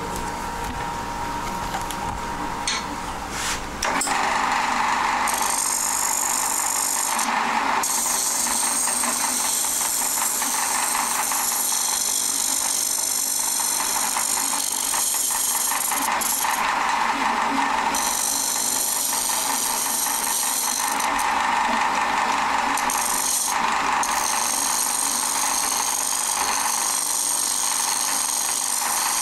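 A gouge cutting a spinning glued-up padauk and mahogany bowl on a wood lathe: a steady shaving noise that starts about four seconds in. It breaks off briefly three times as the tool comes off the wood.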